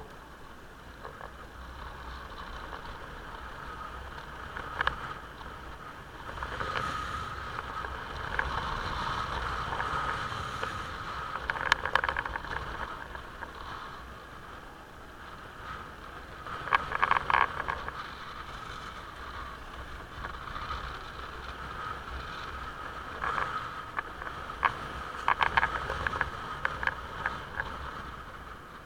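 Motorcycle on the move: steady low engine and road rumble with a noisy mid-range hiss that swells and fades several times, and scattered sharp clicks and crackles.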